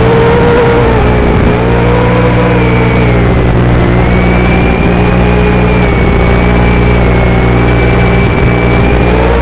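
Quadcopter motors whining through the FPV camera's audio, their pitch drifting up and down slowly, over a loud steady buzz of low tones. The buzz is the background noise caused by the video transmitter sending mono audio to a FatShark receiver that expects stereo.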